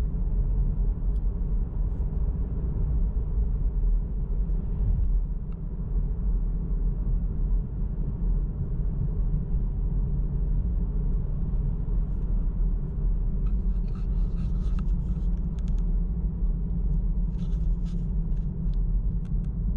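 Car driving at a steady pace: a constant low rumble of engine and road noise, with two spells of light clicking and rattling in the second half.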